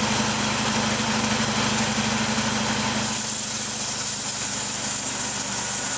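Portable bandsaw sawmill running steadily, its gas engine droning while the band blade cuts into a log, with a steady high whine over the engine.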